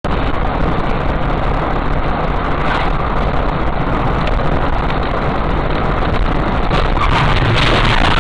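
Steady road and wind noise inside a car driving at high speed, picked up by a dashboard camera's microphone. The rush swells louder and harsher near the end as a collision happens just ahead.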